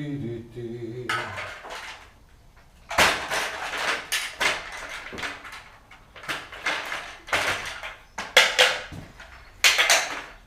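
Metal tools and engine parts clanking and rattling in irregular bursts during hands-on engine strip-down work.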